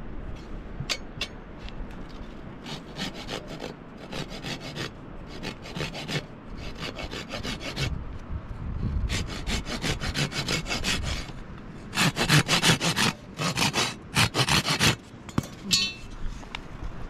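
Hand saw cutting through a wooden stick in quick back-and-forth strokes, in several runs with short pauses between them and loudest near the end.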